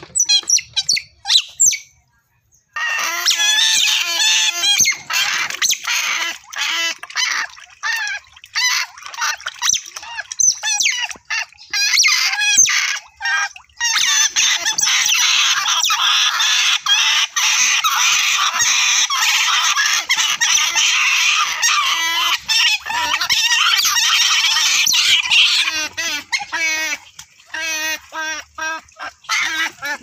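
Otters squealing shrilly and without a break, several high, wavering calls overlapping, while they reach through cage bars for food held out to them: begging calls. The calls are sparse for the first few seconds, then come thick and loud.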